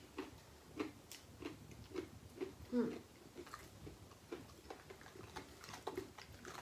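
People chewing pizza: soft, irregular mouth clicks and smacks, a few a second, with a brief low murmur near the middle.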